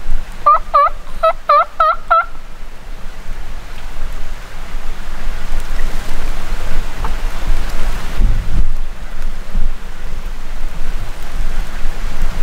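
Wild turkey yelping: a quick series of about seven short notes in the first two seconds, each dipping and rising in pitch. After it comes a steady rushing noise like wind.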